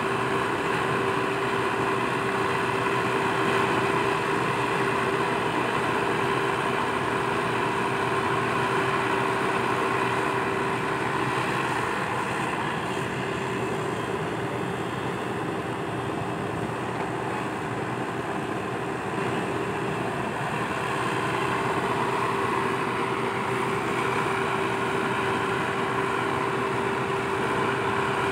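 A Komatsu PC120-5 hydraulic excavator's diesel engine runs steadily under working load as it swings and dumps soil into a truck. A constant hum-like tone rides over the engine.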